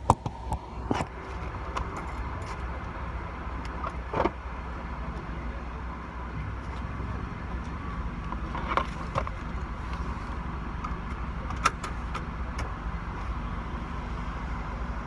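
A car's engine and exhaust running, heard from inside the cabin as a steady low drone, with a few sharp clicks and knocks scattered through it.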